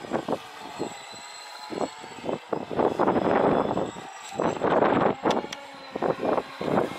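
Radio-controlled speedboat running fast across choppy water. Its motor and hull spray swell and fade in irregular bursts as it skips over the waves.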